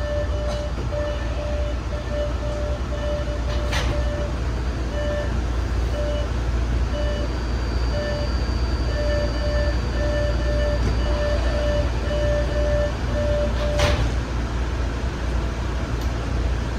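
Interior of a stopped MBTA Orange Line subway car: a steady low hum with a warning tone beeping about twice a second. The beeping stops with a knock about fourteen seconds in.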